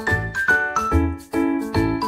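Background music with a steady beat and clear, ringing notes; a short run of notes steps downward in the first second.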